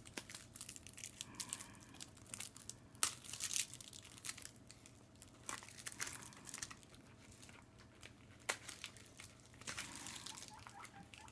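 Faint scattered rustling and crinkling with a few sharp clicks as a small pet shuffles about on the bedding inside its wire cage, with the loudest clicks about three seconds in and eight and a half seconds in.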